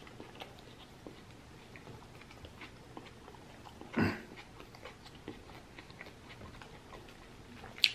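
Close-miked chewing of a mouthful of lamb gyro with the mouth closed: soft, irregular wet clicks and smacks, with a brief louder sound about four seconds in and a sharp click near the end.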